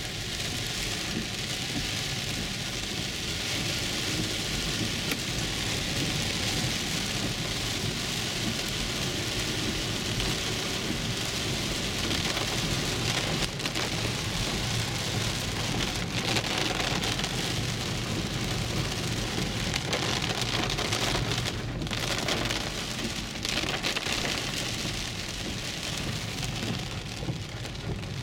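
Heavy rain hitting the roof and windshield of a moving car, heard from inside the cabin as a steady hiss.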